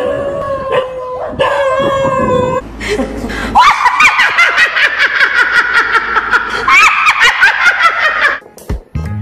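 A held, wavering musical note for the first two and a half seconds, then a woman's loud laughter in rapid bursts for about five seconds, stopping shortly before the end.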